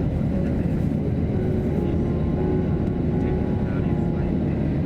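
Steady low rumble of a running vehicle, loud and even throughout.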